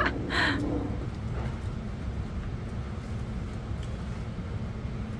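Steady low background rumble, with a brief voice at the very start.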